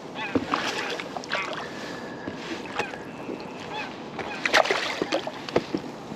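Irregular splashing and sloshing of water close to a float tube as a hooked rainbow trout thrashes at the surface.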